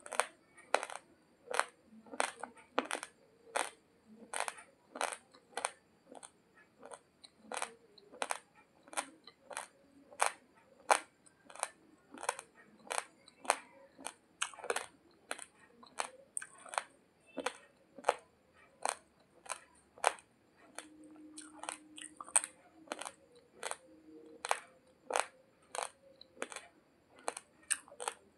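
Raw, uncooked basmati rice grains crunched between the teeth while chewing: sharp, dry crunches in a steady rhythm of about two a second.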